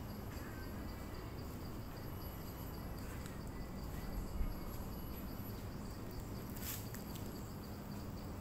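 Insects chirring steadily in the surrounding forest: a fast, pulsing, high-pitched trill that runs on without a break. A brief low thump comes about four seconds in.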